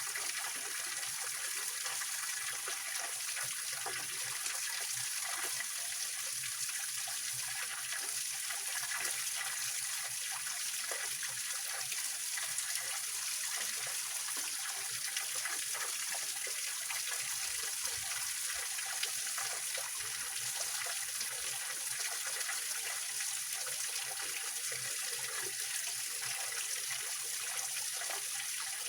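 Small waterfall of a mountain stream splashing and trickling over rocks: a steady, even hiss of flowing water, brightest in the high range.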